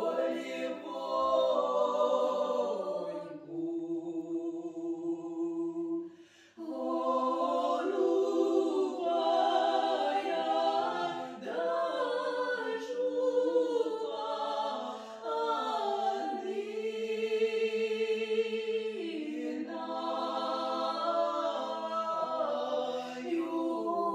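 Background music: a choir singing slow, held chords, with a brief break about six seconds in.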